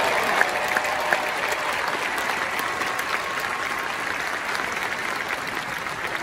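Large crowd applauding in an arena, strongest at first and slowly dying down.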